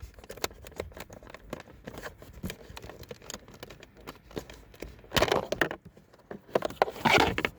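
Plastic parts being handled: a run of small clicks and knocks, with two louder rustling scrapes about five and seven seconds in, as the cabin pollen filter and its plastic housing are worked on.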